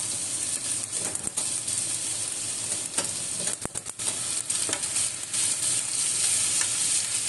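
Food sizzling in hot oil in a pan while being stirred, a steady frying hiss with sharp clicks of the utensil against the pan, several together about halfway through.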